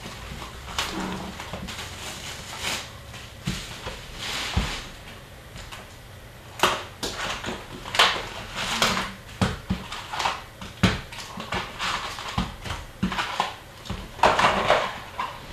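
Irregular rustling, crinkling and light knocks of cardboard, paper and foil packs being handled as a sealed box of hockey cards is opened and its packs are taken out.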